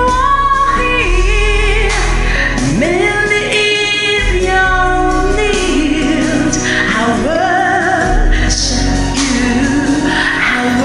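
A woman singing long, held gospel-style notes that slide up and down between pitches, over a steady band accompaniment.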